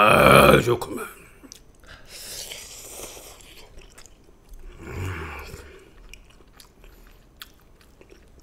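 A person eating jjamppong noodles close to the microphone: a loud burst as a mouthful of noodles is taken in at the start, then softer chewing and mouth sounds with scattered small clicks.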